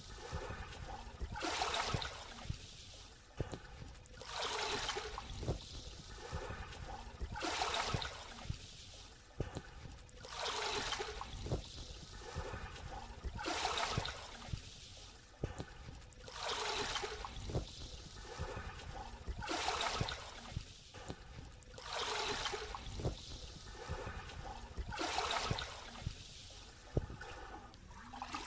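Small waves lapping onto a sandy shore, each rippling wash of shallow water coming in about every three seconds.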